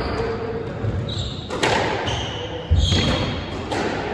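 Squash rally: a squash ball struck by rackets and hitting the court walls, several sharp hits with the loudest a little under three seconds in, and short squeaks of shoes on the court floor between them.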